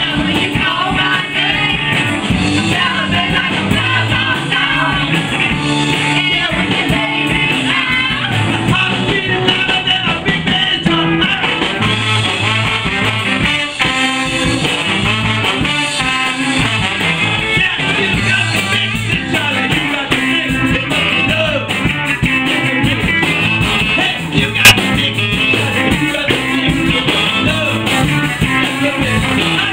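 Live rock band with horns playing: electric guitars, bass, drums, trombone and saxophone, with a man singing lead. A single sharp knock stands out about three quarters of the way through.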